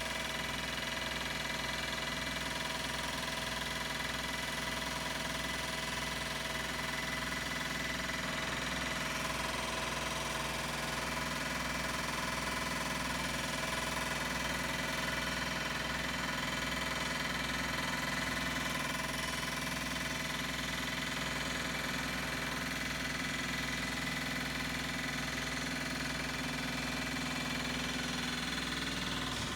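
Construction-site machinery running steadily: a continuous engine drone with a held hum of many steady tones, unchanging in level until it drops away at the very end.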